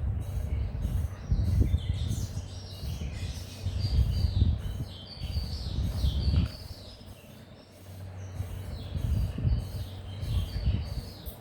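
Birds chirping in the background over uneven low rumbling that swells and fades several times.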